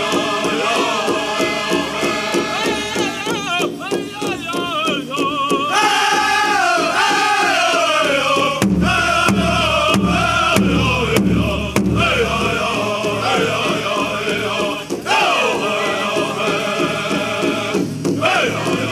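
Southern-style powwow drum group singing: several male voices chant a high melody that slides down in pitch, over a steady drumbeat on a large powwow drum.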